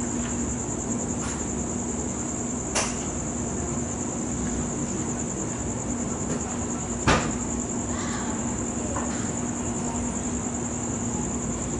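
Crickets chirping in a steady high trill over a constant low hum. Two sharp clicks cut in, about three and seven seconds in, the second louder.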